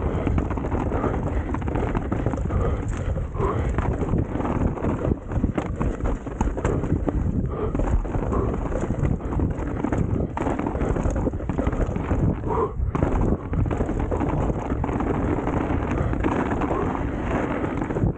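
Mountain bike riding down a rough trail: continuous rumble and irregular rattling and knocking of the bike over the ground, with wind buffeting on the camera microphone.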